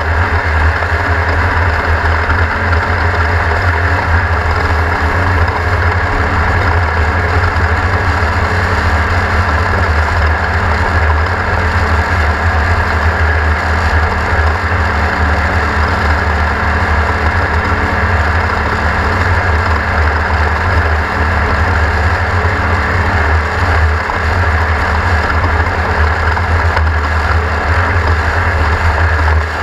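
Onboard sound of a Class 1600 off-road race car's air-cooled 1600 cc VW flat-four engine running steadily and loudly as the car races, with no break or change.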